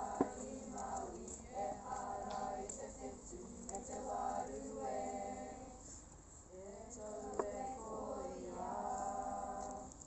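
A group of voices singing a waiata together in long phrases, the song ending just before the close.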